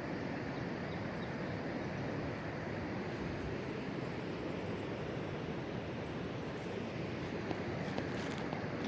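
Steady rushing of a flooded creek, an even wash of water noise that does not change.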